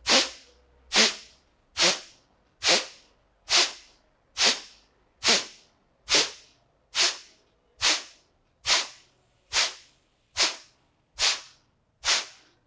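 Kapalbhati breathing: a woman's short, forceful exhalations through the nose, each a sharp puff of air that tails off quickly. There are about fifteen, evenly paced at a little more than one per second.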